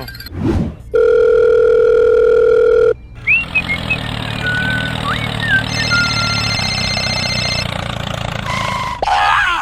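A loud, steady electronic beep lasting about two seconds, like a dial tone. It is followed by a low rumble with short whistling and sliding sound effects over it, and a rising sweep near the end.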